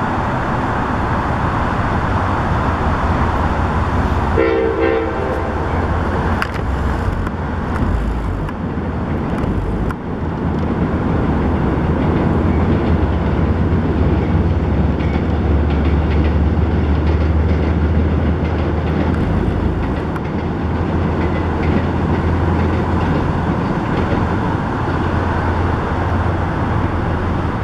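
Amtrak Empire Service passenger train rolling across a steel swing bridge, with a steady rumble of wheels on rail. A short horn blast sounds once, about four and a half seconds in.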